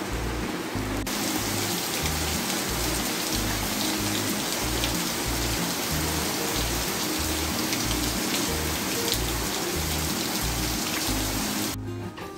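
Heavy rain pouring down steadily, heard over background music with a steady beat. The rain comes in about a second in and cuts off suddenly near the end.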